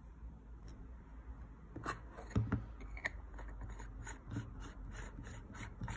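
Hands handling an Angénieux 28 mm camera lens, with a light knock about two and a half seconds in. Then a quick, even run of small clicks, about five a second, as the lens cap is twisted onto it.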